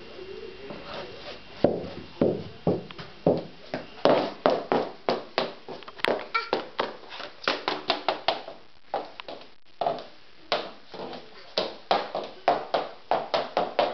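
A toddler's footsteps in adult high-heeled shoes, the heels clacking on a laminate floor in short, uneven steps, about two or three a second. They begin nearly two seconds in.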